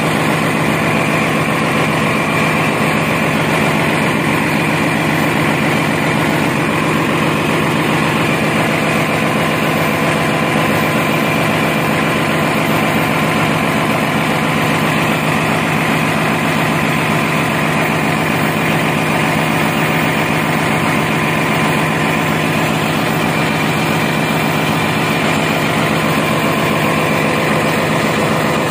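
Yanmar diesel generator engine running steadily at constant speed, a loud even drone.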